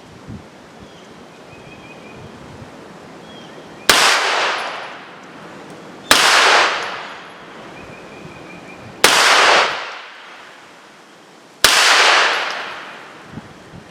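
Four 9mm gunshots a couple of seconds apart, each cut off sharply and followed by about a second of rolling echo.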